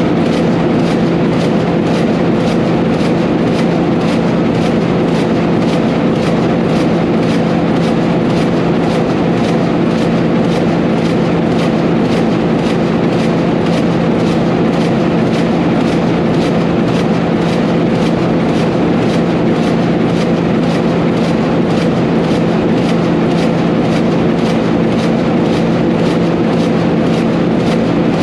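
1932 Burmeister & Wain double-acting two-stroke marine-type diesel engine running steadily: a loud, even, pulsing mechanical clatter over a steady low hum.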